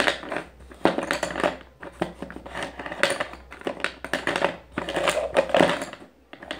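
Colouring pencils being stirred and shaken by hand inside a plastic cup to mix them, a clattering rattle in bursts of clicks with a short pause near the end.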